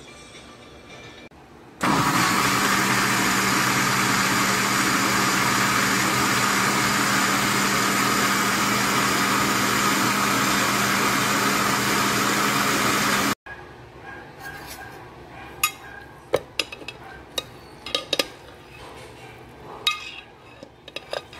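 Imarflex countertop electric blender running steadily, puréeing squash chunks with liquid, with a constant motor hum under the whir, for about eleven seconds before it stops suddenly. After that a metal spoon clinks and scrapes a few times against the blender jar.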